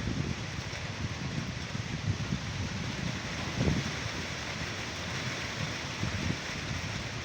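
Steady hiss of falling rain, with gusts of wind buffeting the microphone in irregular low rumbles.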